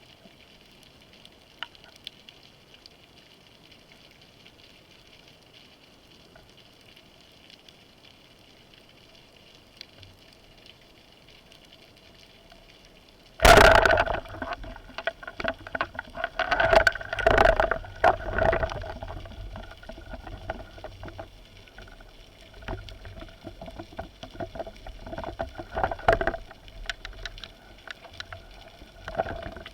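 Faint steady water hiss, then about halfway through a sudden loud rush of splashing and bubbling water that goes on unevenly for several seconds and eases into softer splashes.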